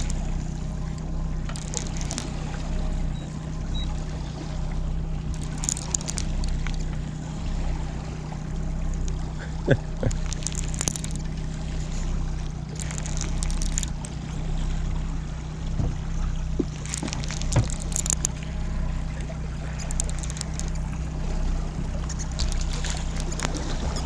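Boat's outboard motor running steadily at low trolling speed, a low even hum, with water lapping against the hull. Short splashes come every few seconds.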